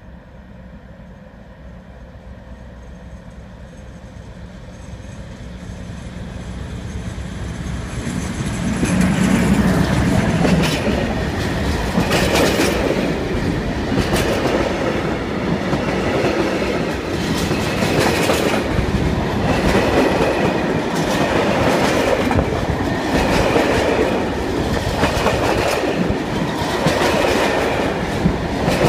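Class 56 diesel locomotive 56105 with its Ruston-Paxman 16-cylinder engine, approaching and growing steadily louder until it passes about nine seconds in. After it comes a long rake of empty timber wagons rolling by, with a regular beat of wheels clicking over rail joints.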